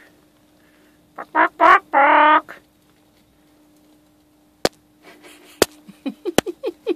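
Hens clucking at close range: a few short, nasal calls and then one longer drawn-out squawk in the first half, then three sharp taps and a run of quick soft clucks near the end.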